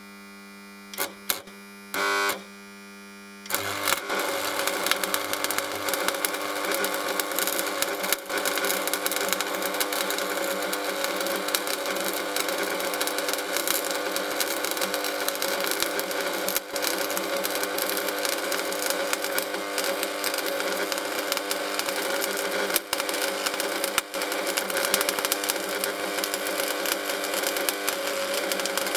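Topweld 140 transformer stick welder (buzz box) humming, with a few short crackles in the first few seconds as a 3.2 mm 6013 electrode is scratched to strike the arc. From about three and a half seconds in the arc holds as a loud, continuous crackling sizzle over the transformer's buzz, cutting out briefly a few times. This is the first test weld after repair, and the welder works.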